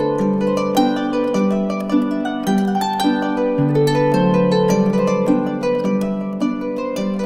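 Background instrumental music: a quick run of plucked, harp-like notes over lower sustained notes.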